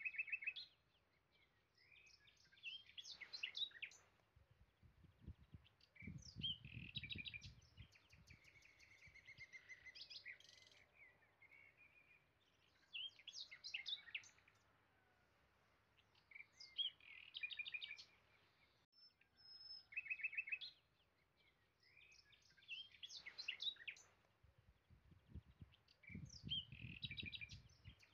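Songbirds singing: bursts of high chirps and trills every few seconds, with a low rumble twice.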